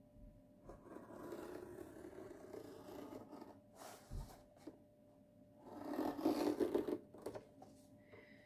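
Craft knife blade scoring the protective paper over a diamond painting canvas, drawn along the edge of a plastic tray. Two scraping cuts: a longer one starting about a second in, and a louder one about six seconds in, with a small knock between them.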